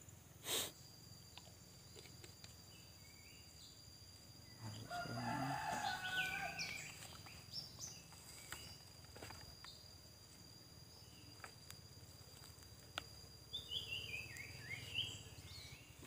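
A rooster crows about five seconds in, and near the end a bird sings a short run of notes stepping down in pitch. Under both runs a thin, steady, high insect whine, and a single sharp click sounds near the start.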